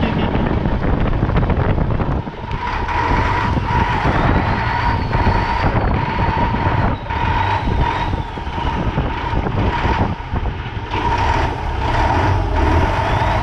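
Fishing boat's engine running under way, a heavy low rumble with a steady whine that fades in and out, and wind gusting on the microphone.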